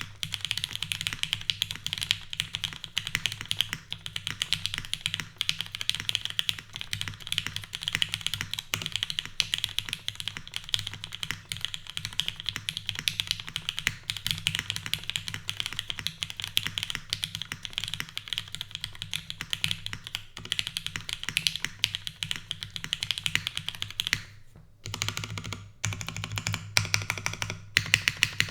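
Continuous fast typing on a custom mechanical keyboard with lubed retooled Cherry MX Black linear switches in a top-mounted aluminium plate, with no foam, under JTK Griseann keycaps. There is a short pause in the keystrokes about 24 seconds in.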